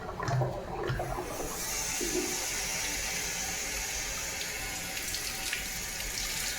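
Water rushing out of a water heater's drain, with a steady hiss that sets in about a second in, as the opened pressure relief valve lets air into the tank and breaks the vacuum that was holding the flow back.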